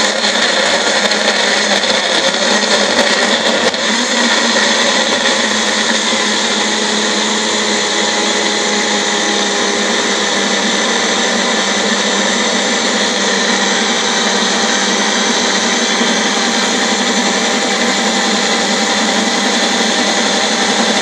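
Magic Bullet personal blender running continuously, chopping apple pieces into pulp for juice. For the first four seconds or so, the pieces knock about with scattered clicks. After that it settles into a smoother, steady whir as the mix evens out.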